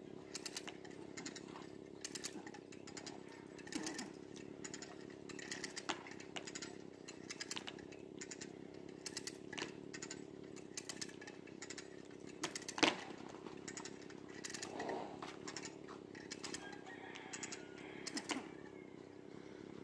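Stihl chainsaw running steadily at a constant pitch, cutting a dead standing tree. Many short crunches of footsteps in snow sound over it.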